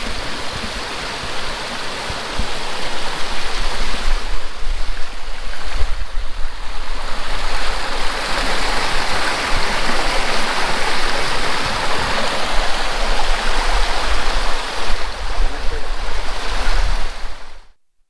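Rushing water of a rocky mountain river or beck, a loud steady rush, with low gusts of wind buffeting the microphone.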